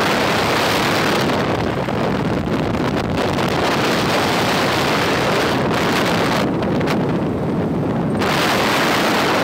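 Wind rushing over the microphone of a phone carried on a moving motorcycle: a loud, steady rush that drowns out everything else.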